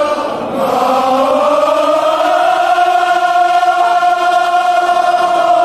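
A group of men chanting loudly in unison on one long held note, the pitch rising over the first second or so and then holding steady: the chanting of a Kashmiri marsiya, a mourning elegy.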